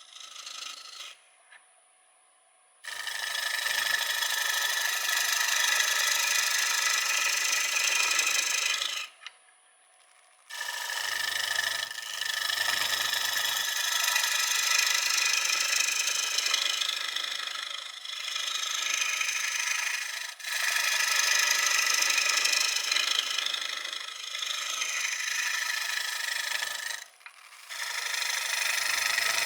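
Lathe tool cutting a spinning blank of wet, freshly cut maple on a wood lathe: a steady hiss of shavings coming off. It runs in long passes, the first starting about three seconds in, with a short break near the middle.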